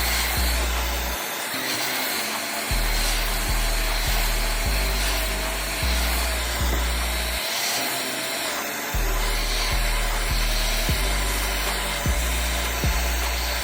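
Background music with a deep bass line that steps between notes and a sharp beat, over a steady hiss.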